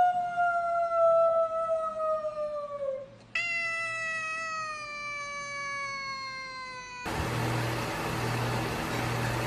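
A tabby cat gives two long, drawn-out meows, each over three seconds and sliding slowly down in pitch. About seven seconds in, it cuts to a steady hiss with a low, pulsing hum.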